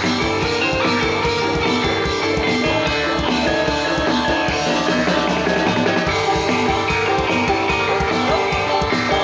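Javanese gamelan ensemble playing jathilan dance music through a loudspeaker system: a steady, fast drum beat under ringing metallophone notes.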